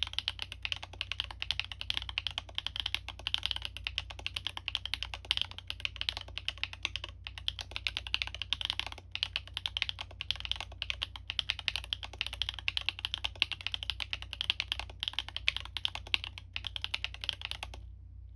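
Continuous fast typing on a Libra Mini mechanical keyboard with stock Gateron x Siliworks Type R switches, an aluminium plate and PBT keycaps: a steady stream of keystroke clacks with a few short pauses, stopping near the end.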